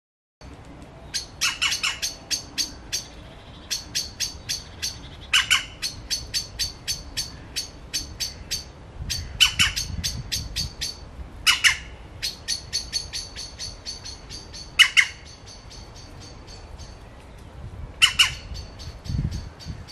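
A bird calling: a fast run of high, thin chips, broken every few seconds by a louder squawk that drops sharply in pitch.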